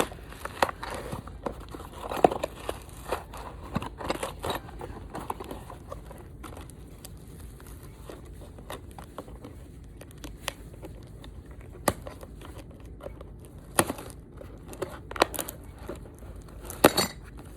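Plastic packaging crinkling and tearing as parts are unpacked and handled, with scattered sharp clicks throughout.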